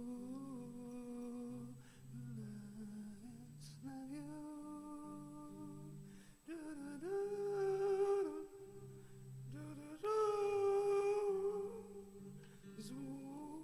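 Wordless worship singing: a voice humming and singing long held notes over a soft, steady instrumental accompaniment. The voice swells louder twice in the second half.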